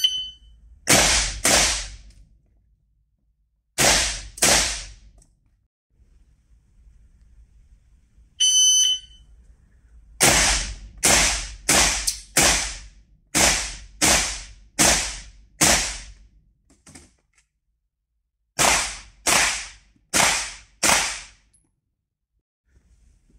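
Shot-timer beeps start a stage of rapid rifle fire from a Stgw 90 (SIG 550) assault rifle. After the first beep come two quick pairs of shots. A second beep about eight and a half seconds in is followed by a string of eight fast shots, then a pause and four more.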